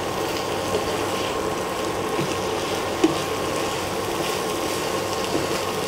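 A spatula stirring and pressing mashed potato stuffing in a hot pan, with a faint sizzle and a few light scrapes, over a steady background hum.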